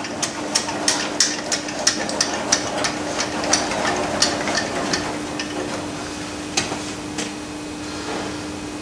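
Metal lathe carriage clicking as its apron handwheel is cranked to run it along the bed, about three ticks a second, thinning out after about five seconds. A steady low hum runs beneath.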